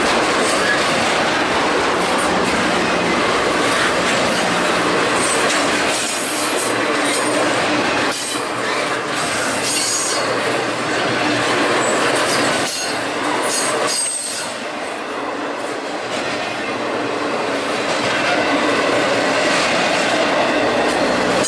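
Freight train rolling past close by: a steady rush of steel wheels on rail, with rapid clicks over the rail joints and high wheel squeal here and there.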